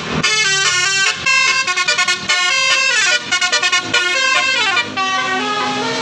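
Tour bus's Basuri telolet horn, a multi-tone musical horn, playing a fast melody of stepping notes with rapid stuttered bursts and a falling run of notes.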